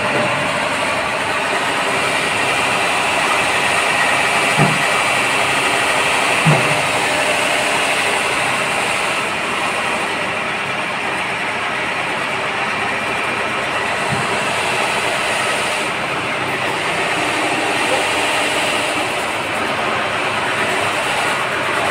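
Wet grinder running steadily, grinding idli and dosa batter, with two brief knocks about five and six and a half seconds in.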